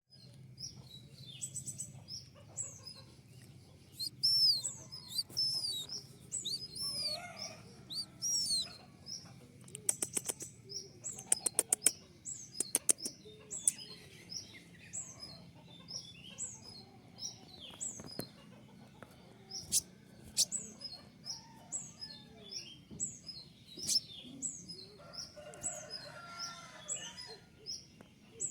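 Male kolibri ninja sunbird (konin) calling: a long run of high, thin chirps, many sliding downward, repeated about every half second to second. A quick burst of sharp ticking notes comes about a third of the way in. A faint low hum runs underneath.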